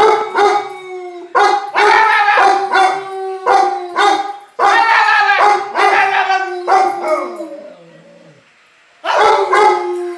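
Large dog howling: long, pulsing howls held on one steady pitch, with short breaks between them. Around seven seconds in the howl trails downward and stops, then the howling starts again near the end.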